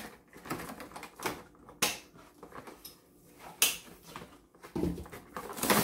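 Cardboard-and-plastic toy box being worked open by hand: irregular sharp clicks and snaps with light rustling of the packaging.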